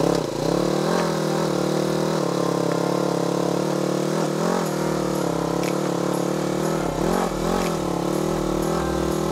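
Polaris General side-by-side's engine running under light, uneven throttle as it crawls up a steep loose slope with a winch helping it, its pitch swelling and dipping several times.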